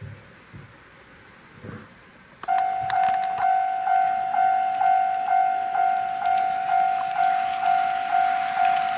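N-gauge model railway level crossing alarm starting up about two and a half seconds in, dinging evenly about twice a second: the crossing warning set off for an approaching train.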